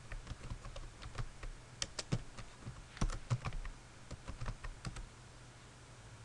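Typing on a computer keyboard: irregular keystrokes, a few a second, that stop about five seconds in.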